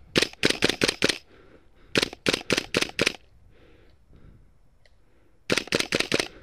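Gas blowback airsoft gun firing three quick strings of about five shots each, every shot a sharp crack with the slide or bolt cycling.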